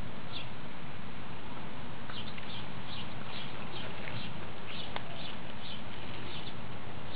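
Steady outdoor background noise, with a bird chirping quickly and repeatedly from about two seconds in.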